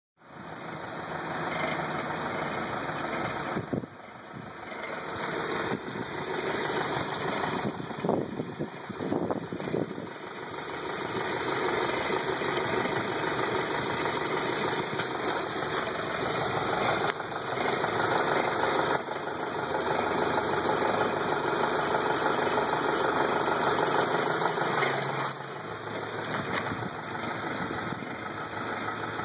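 2006 Volkswagen GTI's 2.0-litre turbocharged four-cylinder engine running, with an unidentified noise that the owner cannot place. The level dips briefly about four seconds in and swells a few times around eight to ten seconds in.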